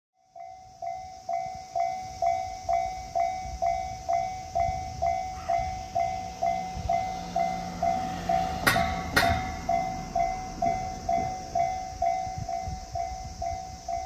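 Japanese level crossing alarm ringing a little over twice a second, starting abruptly at the beginning. Midway a train passes with a low rumble and two sharp knocks close together.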